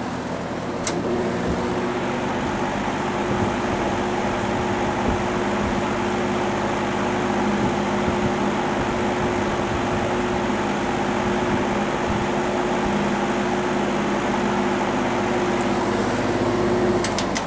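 1957 General Electric W-6 box fan running: a steady rush of air with a loud hum, and a click about a second in. The hum is vibration from the fan blade, which has a loose rivet somewhere.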